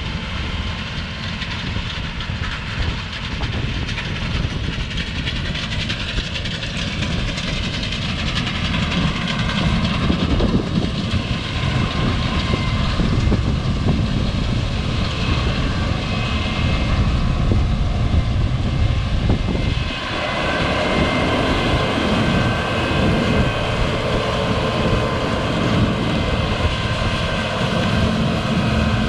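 Heavy farm machinery engines running steadily under a rumbling haze of wind noise, changing abruptly about twenty seconds in.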